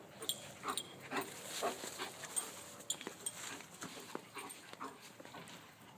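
Dogs at play making short sounds in an irregular string, about two a second, growing fainter near the end.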